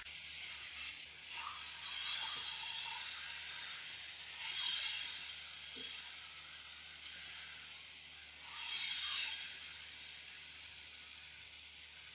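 Okra and tomato masala sizzling in ghee in a metal wok over high heat: a steady hiss that swells louder twice, about four and a half and nine seconds in, as it is stirred with a spatula.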